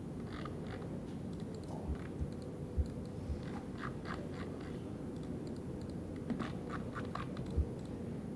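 Scattered light clicks and taps of a computer mouse being worked, over a steady low background hum.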